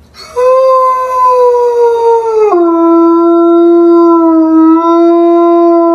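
A large white wolf-like dog howling: one long, loud howl that starts just after the beginning and sinks slightly, then drops abruptly to a lower pitch about two and a half seconds in and holds there.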